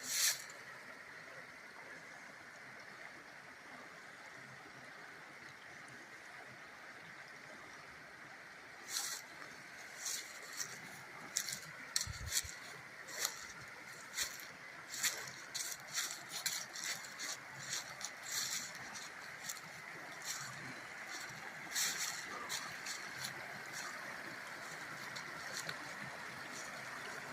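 Trout creek running steadily. From about nine seconds in, irregular crunching footsteps through dry leaves and twigs.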